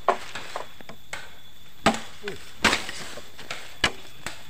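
Bamboo being chopped with a blade: about four sharp chops at uneven intervals, with a few lighter knocks between them.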